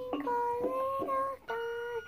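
A young girl singing a wordless tune in several held, gently sliding notes.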